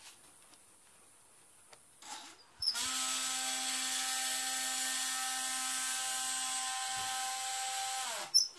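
Stepper motor on a homemade CNC router driving an axis, a steady whine made of several pitched tones that starts about three seconds in, runs about five seconds, dips in pitch as it stops, and is followed by a sharp click.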